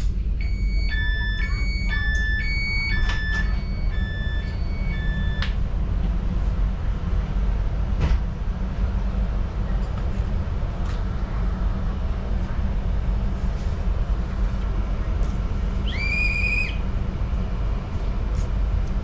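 Moving train heard from inside the carriage, a steady low rumble throughout. About a second in, an electronic chime of several alternating notes plays for a few seconds. Near the end a short, high electronic beep sounds.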